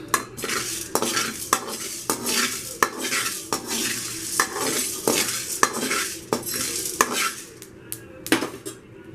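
A spatula scraping and knocking against a dry kadai while stirring cumin seeds and black peppercorns as they dry-roast, with about two or three scrapes and taps a second. The stirring eases off near the end, with one last knock.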